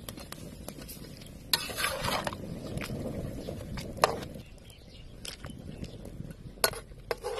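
Kitchen utensil stirring and clinking against cookware: a few sharp clinks, with a longer stretch of scraping about a second and a half in.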